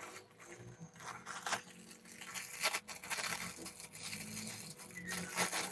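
Plastic wrapping on a packet of bangles crinkling and tearing as hands pull it open, in irregular scattered crackles.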